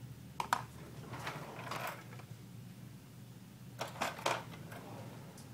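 Small hand tools and phone parts being handled on a work desk: a couple of sharp clicks, a short scraping rustle, then a quick run of three or four clicks and taps about four seconds in, over a low steady hum.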